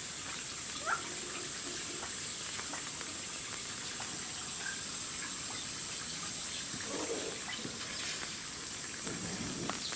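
Steady running water, an even rushing hiss. A faint short rising chirp comes about a second in.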